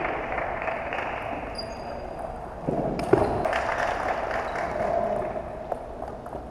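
Low murmur of spectators chatting in a gym hall, with a few light ping-pong ball bounces and clicks as a player gets ready to serve.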